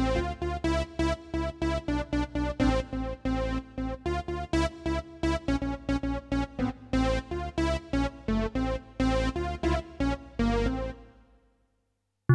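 Casio CTK-800 portable keyboard playing one of its preset voices: a quick series of notes, about three or four a second, each with a sharp attack that decays. The notes stop about a second before the end.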